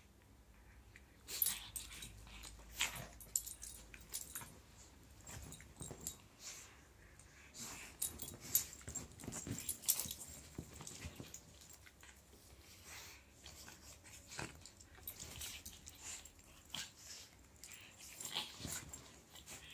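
A terrier and a pug play-fighting on a leather sofa: irregular scuffling and rustling of the blanket with short, sharp dog sounds scattered throughout.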